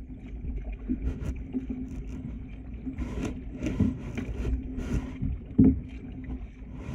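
Kayak being paddled through mangroves: irregular paddle swishes, knocks and scrapes, the loudest about five and a half seconds in, over a steady low hum.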